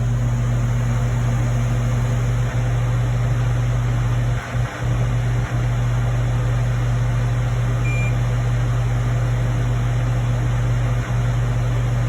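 Steady low hum with an even hiss, like bench equipment or a blower running. It cuts out briefly a few times, around the middle and near the end.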